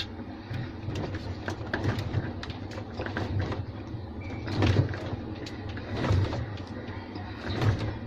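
A cloth-wrapped gloved hand gripping and twisting a washing machine's agitator shaft: the cloth scuffs against the metal, and a low rumble swells three times. The shaft, jammed at its bearing, does not turn.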